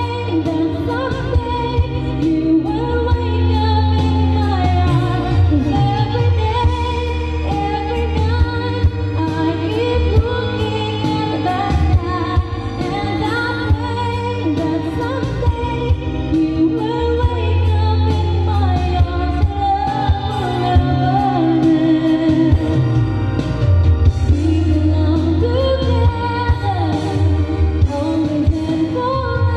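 A woman singing a slow pop love song into a karaoke microphone over a backing track with a steady beat and a bass line.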